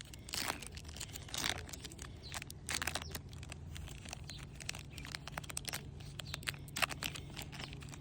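Foil trading-card booster pack being torn open and its wrapper crinkled, in short irregular crackles.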